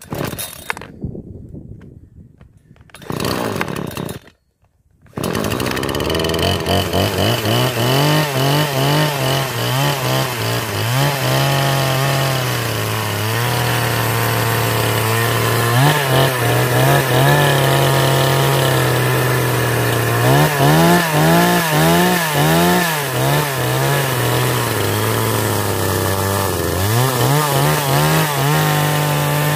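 Radley 50cc two-stroke chainsaw starting after sitting unused for about a month: two short bursts, then it catches about five seconds in and keeps running. Its engine speed wavers, rising and dropping several times.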